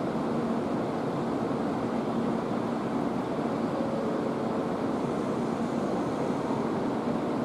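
EF81 electric locomotive drawing a container freight train slowly into the station: a steady hum with a low drone, without clear wheel knocks.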